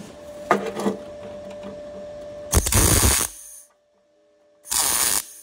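MIG welder stitch-welding thin steel sheet: two short bursts of arc crackle, the first a little over halfway through and the second near the end, each under a second long, with a faint steady hum between them.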